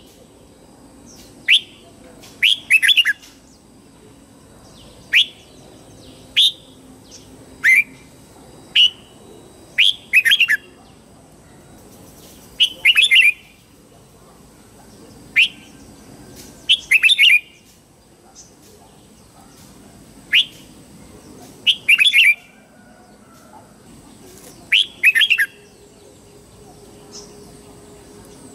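Red-whiskered bulbul singing: short, clear whistled phrases every one to three seconds, some a single note and some a quick run of three or four notes.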